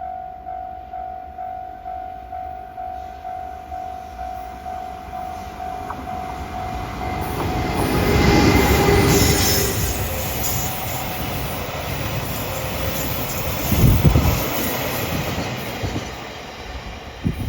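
Railway level-crossing bell dinging about twice a second until, about seven seconds in, it is drowned by an oil tank train passing with rising wheel and rail noise and clatter. The noise is loudest around eight to nine seconds in, with a heavy low thump near fourteen seconds, and fades toward the end.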